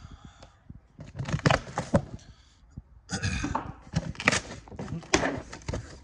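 Cardboard box and packing being handled and pulled open: irregular rustles, scrapes and knocks of cardboard, several separate bursts with short pauses between them.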